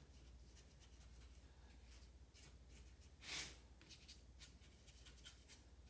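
Near silence with a low steady hum, broken about halfway through by one faint soft swish of a watercolour brush stroking across paper.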